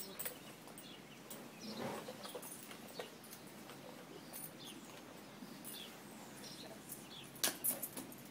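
Faint scattered bird chirps over low background noise, with a couple of louder sharp clicks near the end.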